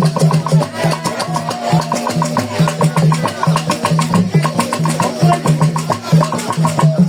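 Music with a steady percussion beat, a clicking pattern repeating several times a second over a repeating bass line.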